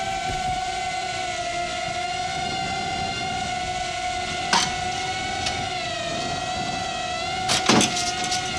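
Cinewhoop FPV quadcopter's motors and ducted propellers whining steadily, the pitch wavering slightly with throttle, with brief louder blips about four and a half seconds in and again near the end.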